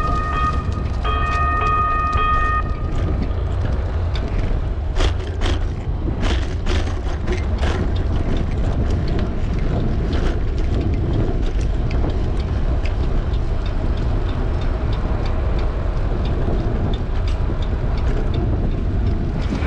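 Wind rumble on an action camera's microphone with road noise from a fixed-gear bicycle riding over city pavement, with scattered clicks and rattles around five to eight seconds in. In the first three seconds a steady pitched tone sounds twice with a short break.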